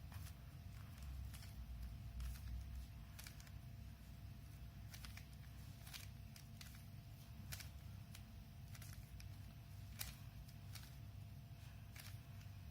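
Rubik's Cube being turned through a corner-swapping algorithm: faint, irregular plastic clicks as the layers are twisted, one or two a second.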